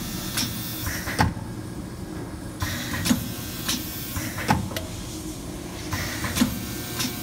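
Vertical form-fill-seal bagging machine cycling at 18 bags per minute: its pneumatic sealing jaws and film drive clack several times each cycle over a steady motor hum. A hiss switches on and off about every three seconds.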